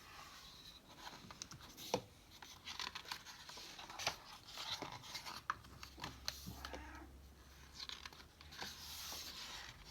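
Faint rustling and scratching of paper with a few soft clicks: the pages of a picture book being handled and turned.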